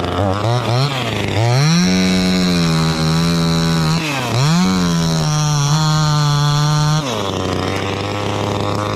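Chainsaw engine revved up from idle and held at high speed, with a brief dip about four seconds in, then dropping back to a steady idle about seven seconds in.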